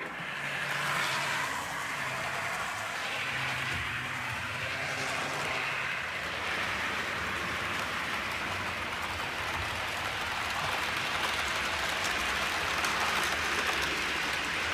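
OO gauge model diesel locomotive running along the layout's track, a steady rushing hiss over a faint low hum.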